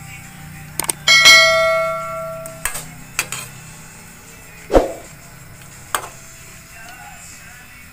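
Metal ladle-spatula knocking against a metal wok while stirring string beans and shrimp. About a second in, a bright bell-like ding rings out and fades over about a second and a half.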